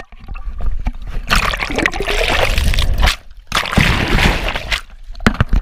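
River water splashing and sloshing over a handheld camera as it dips under the surface and comes up. There are two long rushes of splashing, the first about a second in and the second just after three and a half seconds.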